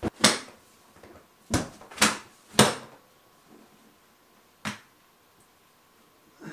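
Paperback books being tossed onto a pile and handled roughly: about six sharp slaps, five of them in quick succession in the first three seconds and one more a little before the five-second mark.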